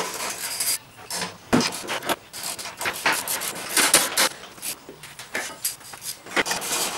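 Irregular rubbing and scraping of plastic with scattered clicks and knocks as the top panel of a zero-turn mower's seat box is worked loose.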